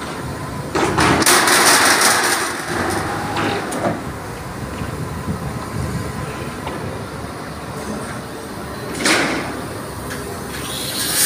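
Truck-mounted telescopic crane working a steel beam overhead: its engine runs with a steady low hum under a loud burst of hissing, scraping noise about a second in and a shorter burst about nine seconds in.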